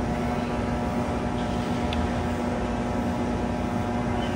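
Cotton candy vending machine running: a steady mechanical hum with one constant tone from its spinning head and motor.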